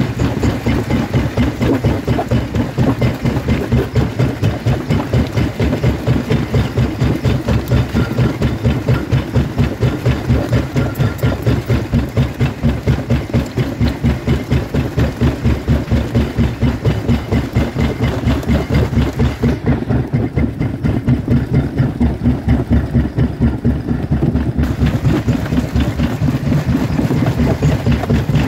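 Jaw crusher running loaded with stone, its swinging jaw working in a steady fast pulse of several strokes a second as the rock between the corrugated jaw plates is crushed.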